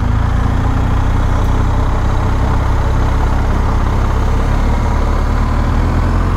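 Motorcycle engine running steadily as the bikes set off, with a faint rise in pitch near the end.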